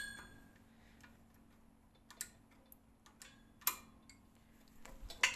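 Sharp metallic ratchet clicks from the hand-operated chain block of a pull-test rig, taken up one click at a time under load. There are four clicks in all: one at the start, then three spaced about a second and a half apart, the last two loudest.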